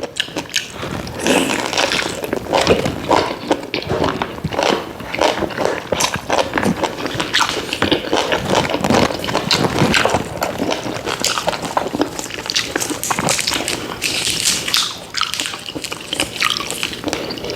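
A person biting and chewing boiled pig's head meat close to the microphone, with irregular mouth clicks and smacks.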